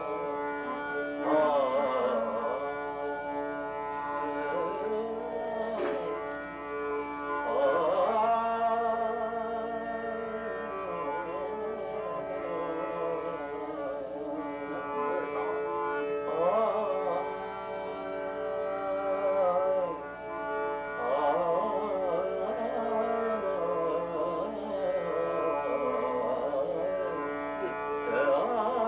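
A male singer performs a Hindi devotional bhajan in raga Bhairavi in long, ornamented phrases with held notes. He accompanies himself on a harmonium, which sustains steady reed notes beneath the voice.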